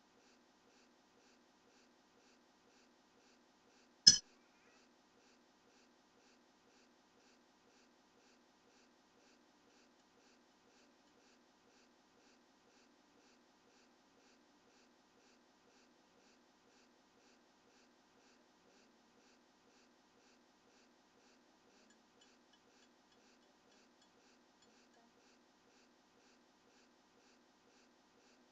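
A single sharp click or knock about four seconds in. Otherwise near silence, with a faint, rapid, even ticking.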